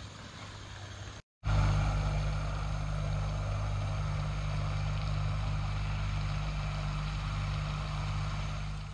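A motor running with a steady, even low hum that cuts in abruptly about a second and a half in, after a quieter stretch of steady noise.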